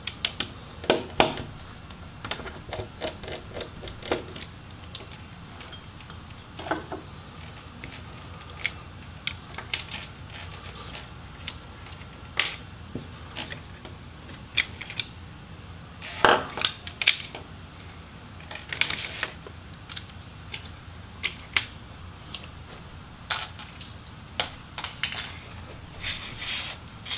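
Small plastic and metal laptop display parts clicking and tapping while hinge screws are undone and the hinge rail and video cable are worked free. The clicks come irregularly, bunched into a few busier clusters.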